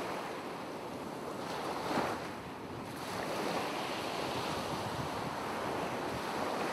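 Ocean surf washing in a steady rush that swells and ebbs, with a slightly stronger surge about two seconds in.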